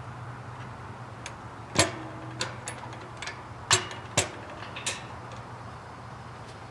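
Steel firebox door of a Camp Chef Alpine wood stove being swung shut and latched: several sharp metal clanks, the first with a brief ring, over a steady low hum.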